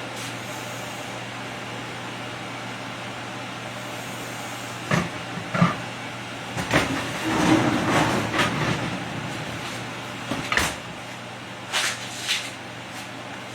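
A steady low hum with a scattering of knocks and clatters, and a longer stretch of handling noise about midway, as things are moved about.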